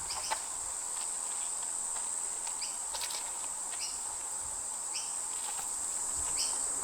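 A steady high-pitched insect drone, like a chorus of cicadas or crickets. From about two and a half seconds in, a short two-note chirp repeats roughly once every second and a bit.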